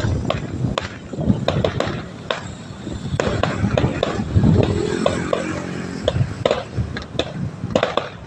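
Firecrackers going off, many sharp irregular cracks over a steady low din.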